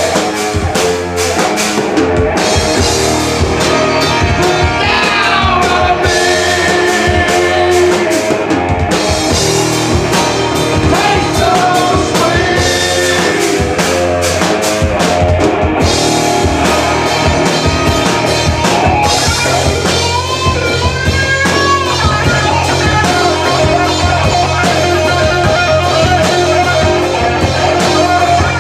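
Live rock band playing, with a drum kit and electric guitar.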